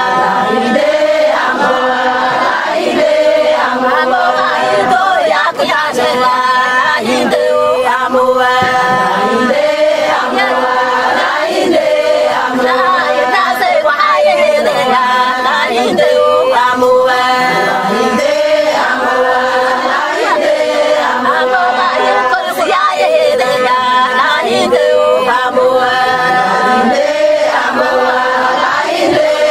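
Somali Bantu song: a group of voices singing together over a steady held note.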